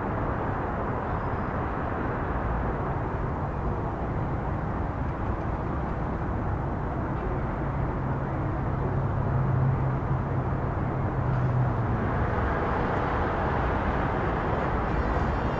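Freight train cars rolling past with a steady rumble of wheels on rail. A low hum comes in for a few seconds around the middle.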